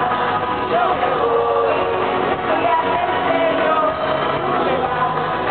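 Live pop band playing, with a woman singing lead into a microphone over guitar and the full band. The sound is muffled and loses its treble, as if recorded from the audience on a low-quality camera.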